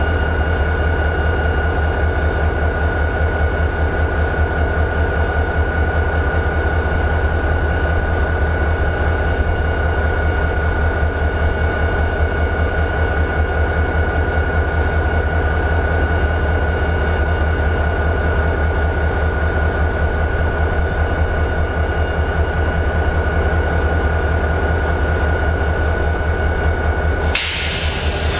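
A CSX GP40-2 locomotive's EMD 645 diesel engine idling: a steady, even low rumble with a constant high whine over it. About a second before the end, a sudden sharp hiss cuts in briefly.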